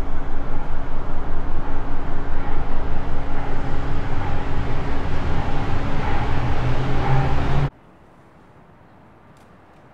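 Loud, rapidly pulsing mechanical rumble with a steady hum through it, cutting off abruptly about eight seconds in and leaving only faint outdoor ambience.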